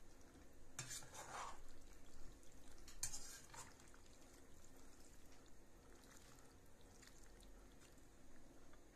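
A metal slotted spoon stirring pasta coated in a creamy tomato sauce and melted kaşar cheese in a pan, quietly, with two louder stirs about one second and three seconds in and a few faint scrapes after.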